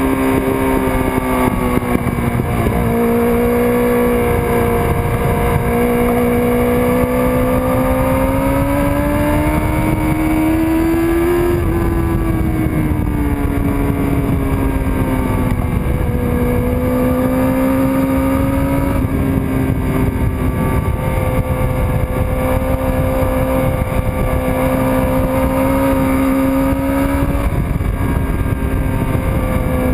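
1999 Kawasaki ZX-6R's inline-four engine under hard riding on a race track, heard from on board with wind rushing past. The engine note climbs steadily under throttle, falls sharply about a third of the way in as the throttle closes, then pulls again with several small steps as the gears change.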